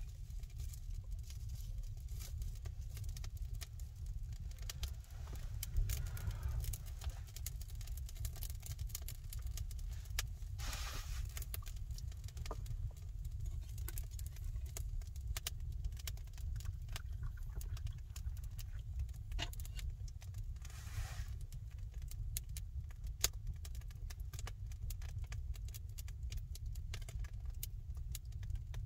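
Small wood fire crackling in a stone fireplace: scattered sharp pops and ticks over a steady low rumble, with a few brief rustling hisses.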